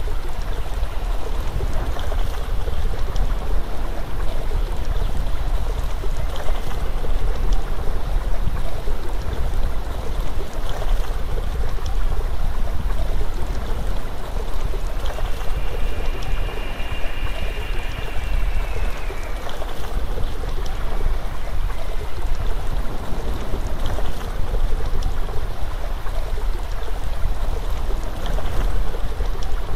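Steady rushing noise of flowing water, heavy in low rumble, with a faint high, slightly falling tone for a few seconds about halfway through.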